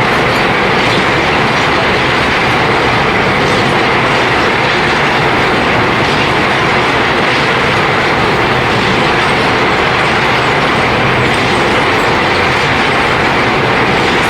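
Motor mill crushing gold ore, running loud and steady with a continuous grinding clatter.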